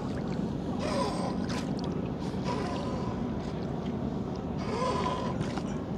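Steady low rumble of a small boat on the river, with water noise that swells briefly twice.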